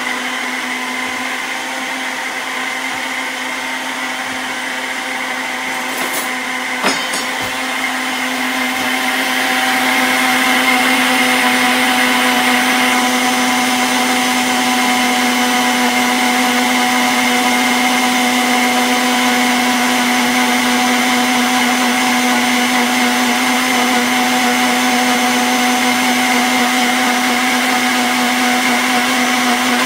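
Countertop electric blender running steadily, its motor blending oats and banana with water into a frothy drink. The hum grows louder about nine seconds in, and there is a single short click a little before that.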